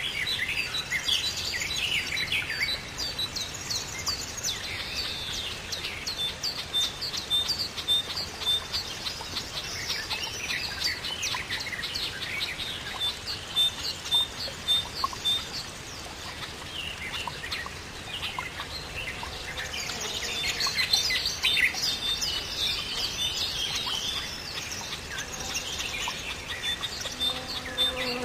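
Several songbirds singing and chirping at once in a dense chorus of short calls and trills. One bird repeats a high, evenly spaced piping note a few times through the stretch.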